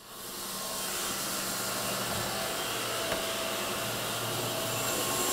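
Large custom-built bandsaw sawmill running with a steady, dense whir. The sound swells in the first second as a door opens onto it and grows a little louder near the end.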